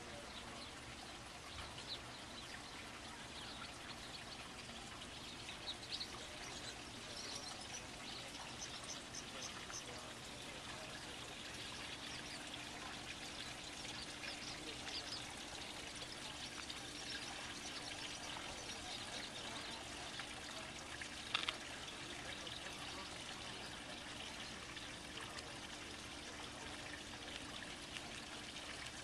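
Faint riverside ambience: water trickling and lapping at the shore, with scattered faint high chirps and a faint steady low hum. A sharp click sounds once about two-thirds of the way through.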